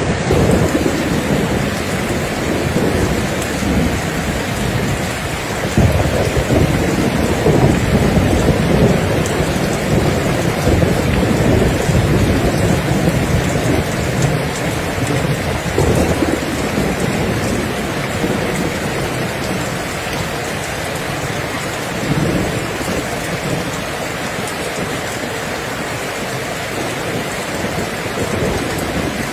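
Steady rain falling hard, with low rumbles of thunder swelling and fading several times, strongest in the first half.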